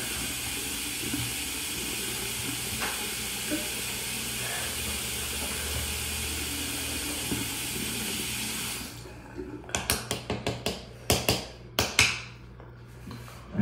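Bathroom sink tap running steadily into the basin, then shut off about nine seconds in. A quick run of sharp clicks and knocks follows.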